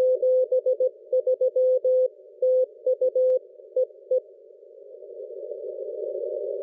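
Morse code (CW) signal on the 600 m amateur band as heard through a shortwave receiver: a tone of about 500 Hz keyed in short dots and longer dashes over narrow-filtered receiver hiss. The keying stops about four seconds in, and the hiss drops away after it and then slowly rises back.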